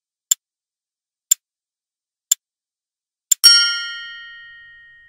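Countdown-timer sound effect: a clock ticking once a second, four ticks, then a single bell-like ding with several tones that rings on and fades, marking the end of the countdown and the answer reveal.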